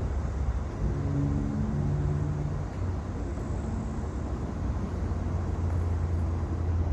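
Steady low rumble of a crane's diesel engine running during a lift, with a brief pitched hum rising over it from about a second in to nearly three seconds in.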